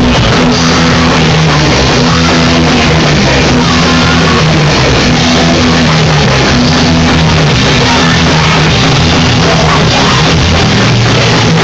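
Live punk rock band playing loudly: pounding drum kit, distorted guitar and bass working a repeating low riff, with a vocalist shouting into a microphone.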